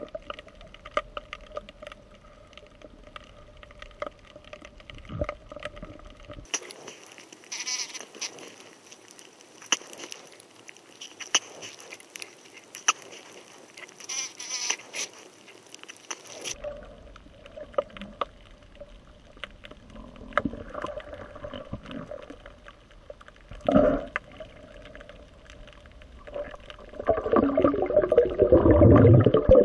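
Underwater sound picked up by a camera in its housing: scattered clicks and crackling over a steady hum. A brighter, hissier stretch runs through the middle, and a louder gurgling rumble swells near the end.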